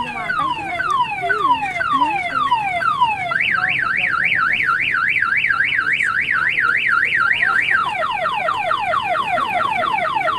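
Electronic siren cycling through its tone patterns: falling wails about twice a second, then a fast up-and-down warble from about three seconds in, then quicker falling wails from about eight seconds in.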